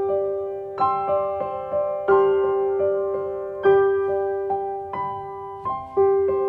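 Background music: a slow, gentle piano piece, chords struck about once every second or so and left to ring out.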